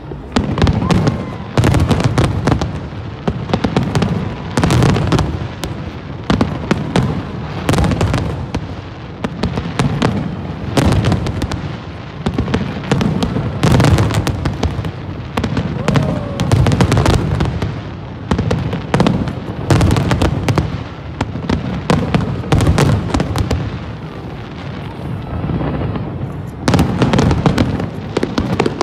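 New Year fireworks display: a dense, unbroken barrage of bangs in quick succession.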